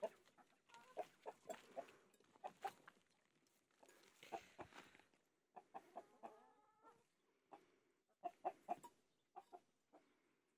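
A flock of hens clucking, short clucks coming in quick runs of three or four, with a longer drawn-out call about six seconds in and a brief rustle of movement a little before it.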